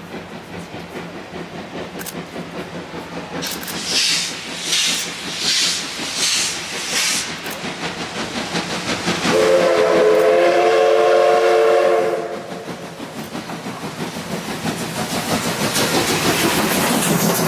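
C57 180 steam locomotive's two-cylinder engine: five sharp hissing exhaust beats about three-quarters of a second apart, then its steam whistle sounds one chord-like blast for about three seconds. After that the rumble and rail clatter of the train build up steadily.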